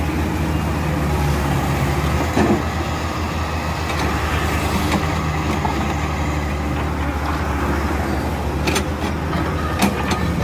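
Diesel engine of a small hydraulic excavator running steadily while it digs, with a few short metallic clanks near the end.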